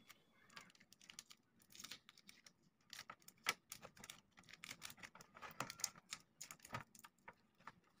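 Faint, irregular crackles and clicks of adhesive tape being wound around a spliced wire joint, with the wires handled between the fingers.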